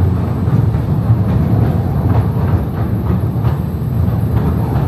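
Narrow-gauge electric passenger train running through a tunnel, heard from on board: a steady rumble of the wheels on the rails with faint, irregular clicks.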